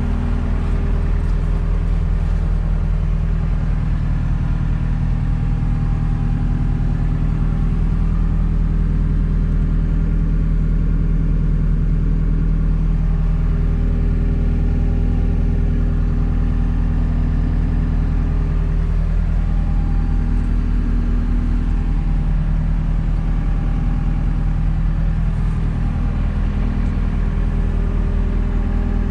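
2010 JCB 260 skid steer's diesel engine running steadily, with no big change in speed.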